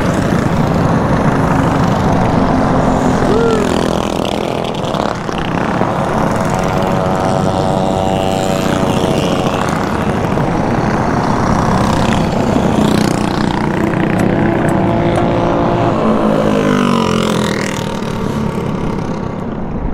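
Several mini bike engines running and passing by, their pitch rising and falling as the riders rev and accelerate away.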